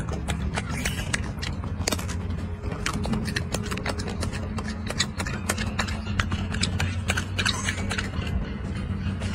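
Golden snub-nosed monkey chewing food at close range: a run of irregular crisp clicks and crunches over a steady low hum.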